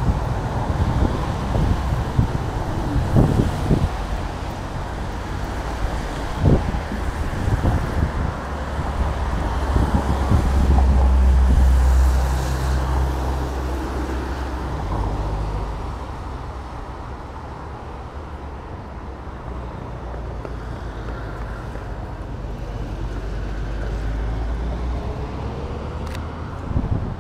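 Street traffic: cars passing with tyres hissing on wet road, the loudest one swelling past about ten to thirteen seconds in, over a steady low rumble, with wind on the microphone.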